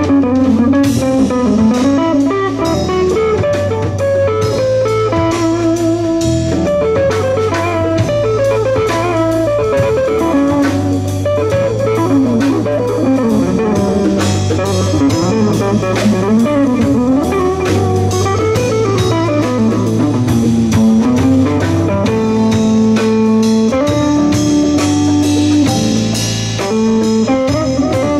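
Live jazz band playing: an archtop hollow-body guitar picks a single-note melody line over a bass line and drum kit.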